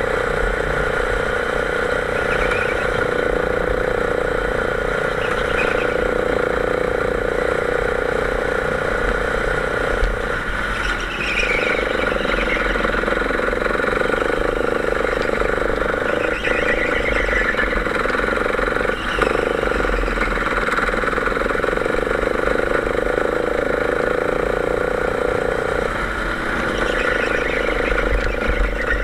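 Go-kart engine running hard at racing speed, heard from on board: a steady, loud note that drops briefly a few times as the throttle is lifted for corners. Faint high squeals come in around the corners.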